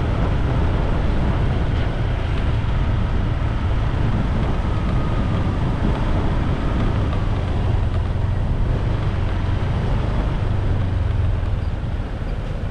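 Steady low rumble of a bike in motion on a rough, sandy lane, easing slightly near the end as the ride slows.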